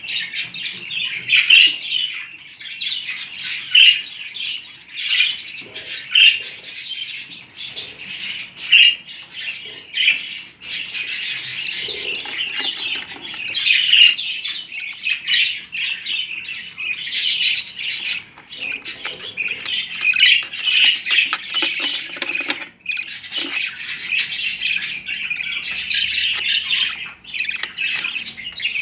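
Several budgerigars chattering and squawking without a break, a dense stream of short high chirps and warbles, with a brief lull a little over twenty seconds in.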